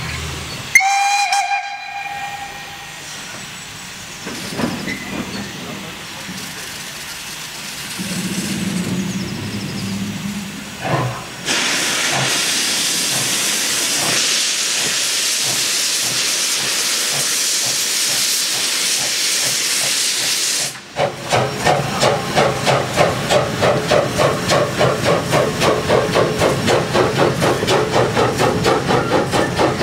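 Saxon class I K narrow-gauge steam locomotive No. 54 moving off: a short blast on its steam whistle about a second in, then a long steady hiss of steam from the cylinder drain cocks. Near the end it runs past close by with rhythmic exhaust beats, about two a second.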